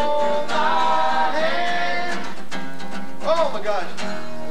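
A group of voices singing a song along with a strummed acoustic guitar.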